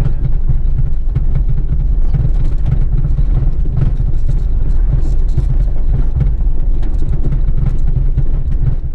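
Small 4x4 driving down a loose gravel track: a steady heavy rumble of engine and tyres, with many scattered clicks and knocks of stones under the wheels.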